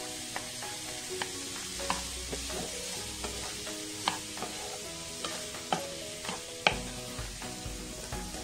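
Wooden spatula stirring and scraping chopped boiled eggs and sautéed vegetables around a black kadai, with light sizzling from the hot oil as the egg thoran is stir-fried. Scattered sharp knocks of the spatula against the pan, the loudest nearly seven seconds in.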